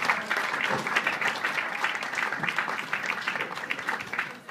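Audience applauding, with some voices mixed in, dying down near the end.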